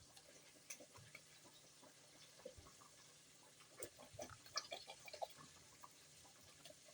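Near silence with faint, scattered light clicks and taps, a few more of them about four to five seconds in.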